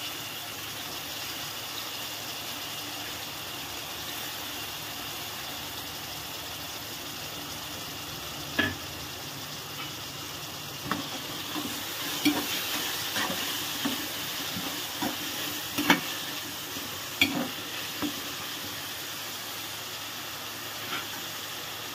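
Carrots, beans and peas frying in oil in a kadhai with a steady sizzle. From about nine seconds in, a spatula scrapes and knocks irregularly against the pan as the vegetables are stirred.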